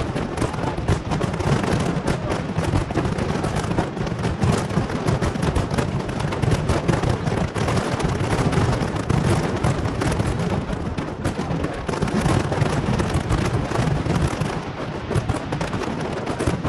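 Fireworks going off in a dense, continuous barrage: rapid overlapping bangs and crackles with deep booms underneath.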